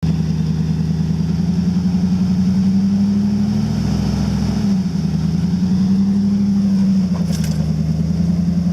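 Off-road vehicle's engine running steadily under light throttle, its pitch rising slightly and then dropping back about four and a half seconds in.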